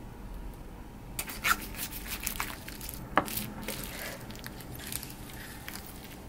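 Plastic cling film crinkling and crackling as a knife slices down through a film-wrapped vegetable terrine on a wooden board. A dense run of crackles starts about a second in and dies away near the end, with two sharper clicks, the loudest about three seconds in.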